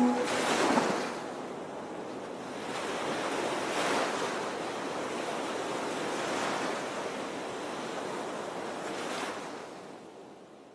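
Sea waves washing in, an even hiss of water that swells and ebbs every few seconds, then fades out near the end.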